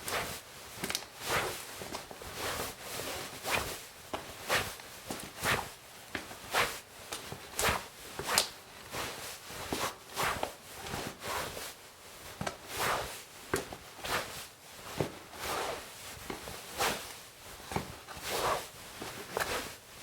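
Trouser fabric swishing, the legs brushing past each other in a steady series of short whooshes, about one and a half a second.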